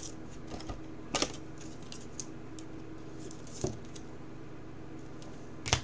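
A few sharp plastic clicks and light rustles as a trading card is handled and slid into a clear plastic sleeve, about a second in, near the middle and near the end, over a low steady hum.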